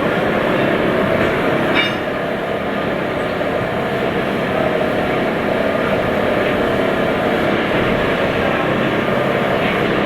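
Lathe running while turning a crane rope drum: a steady, loud mechanical noise, with a brief high-pitched ring about two seconds in.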